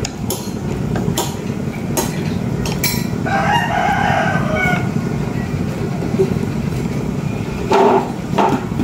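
A rooster crows once about three seconds in, over the steady low rush of a pot boiling on the burner. Wooden chopsticks click against the aluminium pot a few times early on as the water spinach is stirred.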